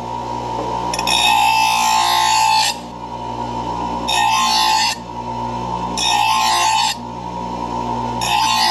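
Bench grinder running with a steady hum while a steel lawn mower blade is pressed against the wheel to sharpen it, grinding in four passes of a second or two each.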